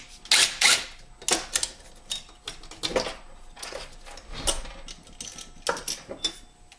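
Irregular metallic clicks and taps, eight or so spread across a few seconds, as a starter bolt and sheet-metal shroud are fitted by hand onto a small engine.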